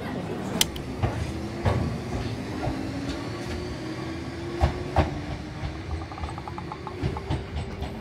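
Enoden electric commuter train running at a station platform. A few sharp knocks from the wheels are heard, and the electric motor's whine slowly rises in pitch as the train picks up speed. A run of quick, even ticks comes near the end.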